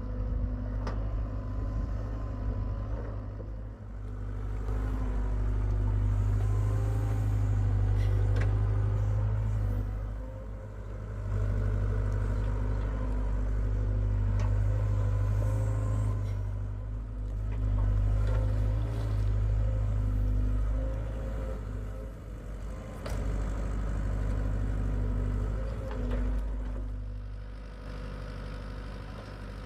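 Hitachi EX75UR compact excavator's diesel engine running under load, its sound swelling and easing every few seconds as the hydraulics work through the dig cycles, with a few sharp knocks of the bucket and arm.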